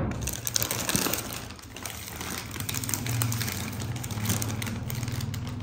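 Plastic food packaging crinkling and rustling as a plastic tray and bags of frozen samosas and rolls are handled, in irregular crackles. A low steady hum sits underneath from about halfway through.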